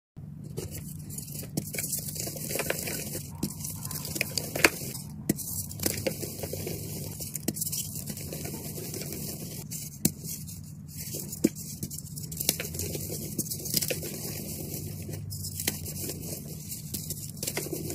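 Hands crushing and crumbling chunks of reformed gym chalk: a dense crackle of small crunches with a few sharper snaps, over a steady low hum.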